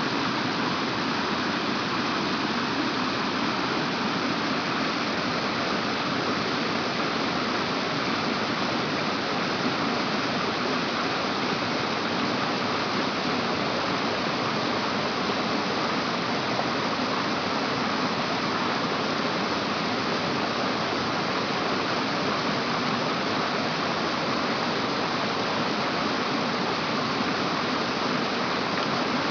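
Steady rushing of running water, an even, unbroken hiss without any rhythm.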